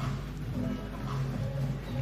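Background music with a steady beat and low sustained notes.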